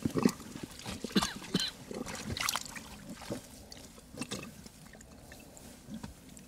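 Irregular splashes and drips of water with a few sharp knocks, busiest in the first four seconds, then dying down to a faint background.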